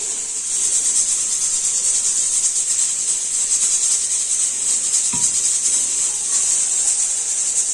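A steady, high-pitched insect drone, with one short knock about five seconds in.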